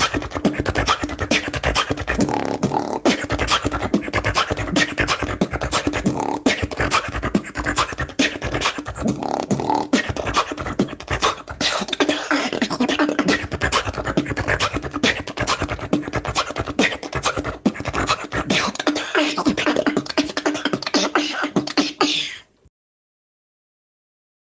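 Solo beatboxing: a fast, dense rhythm of mouth-made kick, snare and hi-hat sounds with a steady low tone held underneath. It cuts off suddenly about two seconds before the end.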